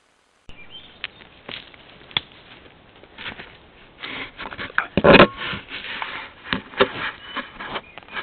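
A large animal investigating a trail camera at point-blank range: sniffing, with its nose and fur rubbing and scraping against the camera housing in a string of sharp knocks and rustles. It starts about half a second in, and the loudest knocks come about five seconds in.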